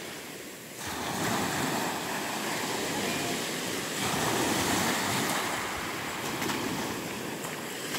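Small sea waves breaking and washing up a pebble beach, an even rushing surf that swells about a second in and again around four seconds.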